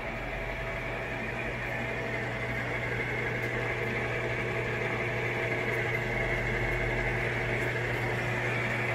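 Jet GH-2280ZX geared-head engine lathe running steadily at a slow spindle speed in threading mode: a constant machine hum and gear whir as the leadscrew turns and drives the carriage along the bed.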